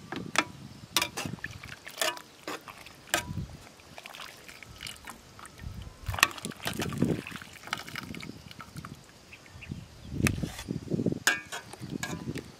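Metal tongs clinking against a steel cooking pot as boiled pig intestines are lifted out of the broth, with wet dripping and splashing as they come out of the liquid. Sharp clinks come singly or in quick clusters.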